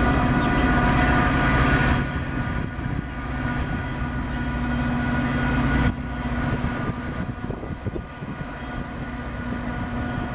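EMD F40PH-3 diesel locomotive with its 16-cylinder two-stroke engine running steadily as it brings a passenger train slowly toward the camera; the sound drops in level about two seconds in and again about six seconds in.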